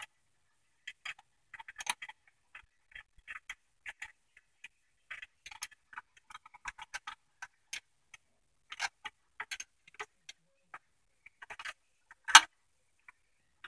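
Irregular light clicks and clinks of hand tools and small parts being handled while taking parts off a car, with one louder knock about twelve seconds in.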